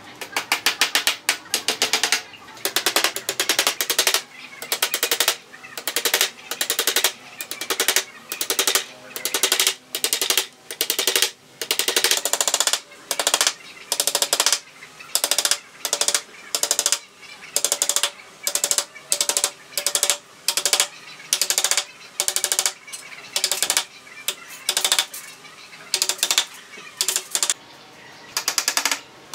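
Claw hammer driving small nails through thin bamboo slats into a wooden frame: short runs of quick taps with brief pauses between, over and over.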